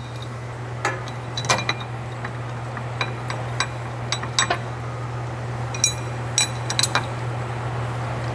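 Loose metal hardware clinking as bolts and brace parts are handled, about nine sharp ringing clinks in small clusters over a steady low hum.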